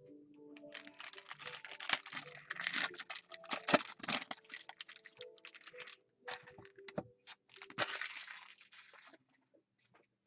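Silver foil trading-card pack crinkling and tearing as it is opened by hand, in uneven spurts of crackling with sharp clicks, pausing briefly partway through. Faint background music underneath.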